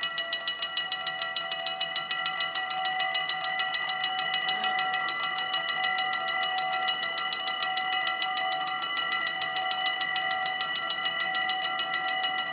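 Dutch level-crossing warning bells ringing in a fast, even series of metallic strokes, about six or seven a second, with a steady ringing tone. They ring while the barriers lower, warning that a train is coming.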